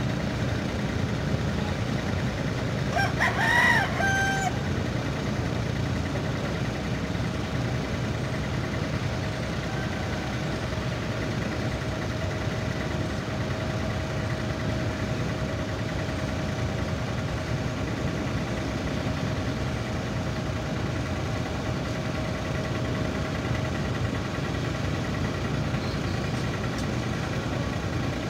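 Steady low rumble of a ship's engine running, with a faint steady whine above it. About three seconds in, a rooster crows once.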